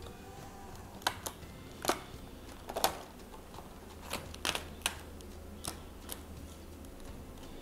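Thin clear plastic letter tiles for a cinema light box clicking and crackling as they are handled and flexed, in scattered sharp clicks, with a small cluster in the middle.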